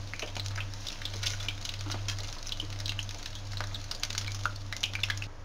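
Hard-boiled eggs deep-frying in hot mustard oil in a kadhai, sizzling with scattered crackles and pops as they are lifted out one at a time.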